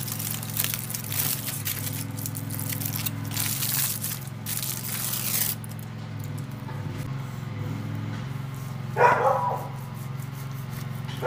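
Aluminium foil crinkling and crackling as it is unwrapped, for about the first five and a half seconds. After that it is quieter, with a short, loud pitched cry about nine seconds in.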